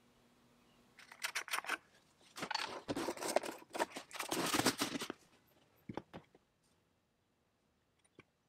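Hands handling a bar-oil bottle at the chainsaw's bar-oil tank filler: about four seconds of crackling and clicking, then two light knocks around six seconds in, and a few faint ticks near the end as the bottle is brought to the filler.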